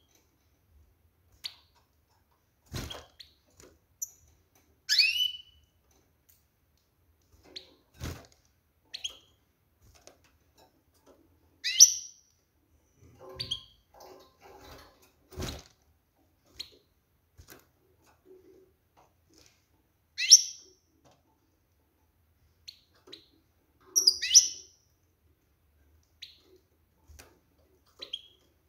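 Female European goldfinch in a cage giving short, sharp calls every few seconds, each a quick chirp sliding through a high pitch range. A few sharp knocks are heard between them. The keeper takes these calls as a hen calling males and showing she is ready to breed.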